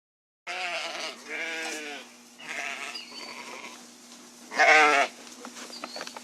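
Sheep bleating four times with wavering calls, starting about half a second in. The last bleat, about four and a half seconds in, is the loudest.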